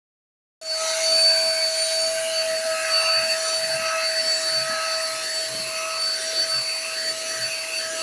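Handheld vacuum cleaner switching on about half a second in and running with a steady high-pitched motor whine and rushing air.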